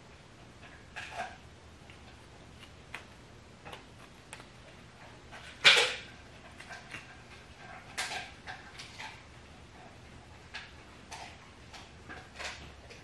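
Scattered light clicks and knocks from hands working a toothed rubber timing belt over the gears and pulleys of a VW/Audi AEB 1.8T 20-valve engine, with one sharper knock about six seconds in.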